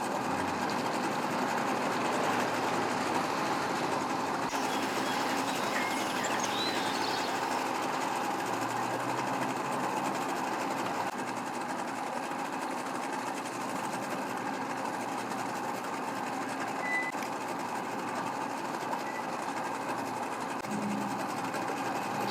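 Boat motors running steadily at low speed, a continuous mechanical drone with no breaks.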